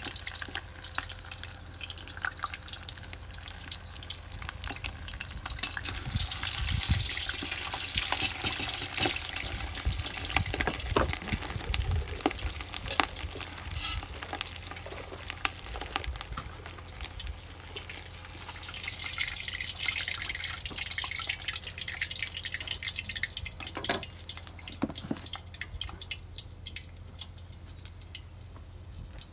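Stew being stirred in a cast-iron cauldron over a wood fire: liquid sloshing and hissing as the spoon works through it, with scattered sharp clicks. The stirring swells twice, about a quarter and two-thirds of the way in, and eases off near the end.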